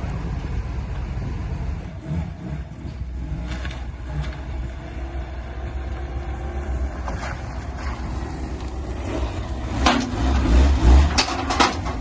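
A motor vehicle running with a steady low rumble. Several knocks and rattles come in near the end.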